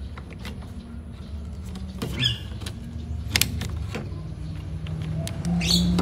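Clicks, taps and small knocks of parts and wiring being handled, with two short high squeaks, over a steady low hum.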